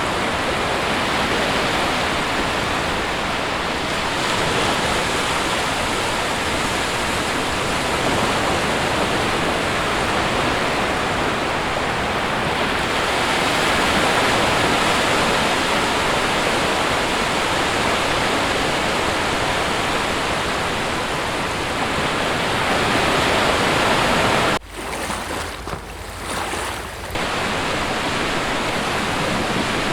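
Sea waves breaking on a shore: a continuous, even wash of surf that swells a little around the middle. About three-quarters of the way through it drops suddenly for a couple of seconds, then returns at full level.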